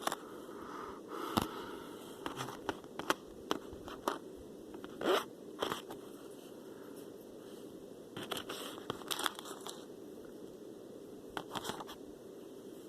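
Small plastic toy pieces being handled and fitted together: irregular light clicks, taps and brief scrapes.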